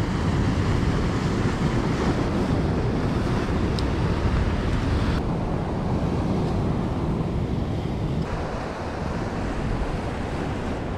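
Sea surf washing on rocks, with wind rumbling on the microphone. The higher hiss of the water thins out about five seconds in.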